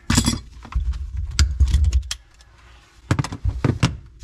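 Sharp metallic clicks and clinks of hand tools being handled, in several short clusters, over a low rumble in the first half.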